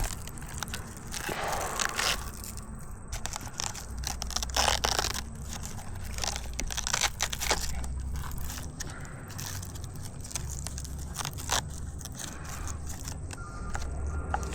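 Hands-on handling noise from working the RC truck's long Velcro battery straps: irregular scraping, rustling and clicks, with a couple of louder rasping bursts, over a low steady rumble.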